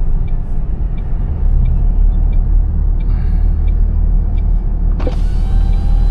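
Inside a truck cab: the engine and road drone steadily while the hazard-light flasher ticks about every 0.7 s. About five seconds in, a sudden hiss with steady tones cuts in over the drone.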